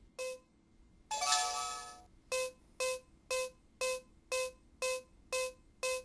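Yale Real Living touchscreen deadbolt keypad sounding electronic tones. First a single short beep, then a short chime of several tones, then eight identical short beeps about two a second as the digits of a user PIN code are keyed in.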